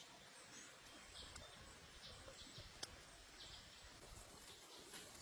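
Near silence: faint outdoor background with a few short, high chirps spread through it and a single soft click near the middle.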